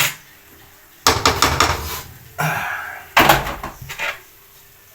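Kitchen clatter of cookware and utensils: a sharp knock at the start, then three short bursts of knocking and scraping.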